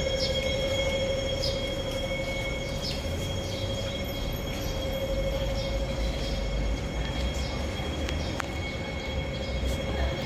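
Hong Kong Light Rail train at a station giving a steady electric whine over a low rumble, with short high chirps recurring throughout.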